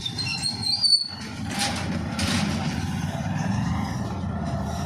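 A steady low rumble of a running engine, with a short sharp clatter about a second in.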